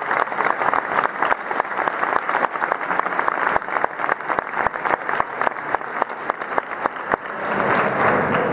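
Audience applauding; the clapping thins out near the end.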